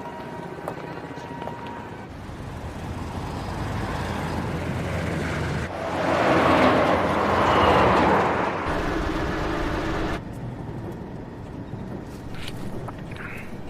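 A vehicle passing close by on a street: a noisy rumble that builds, peaks loudly for a couple of seconds and then fades, with the background changing abruptly about ten seconds in.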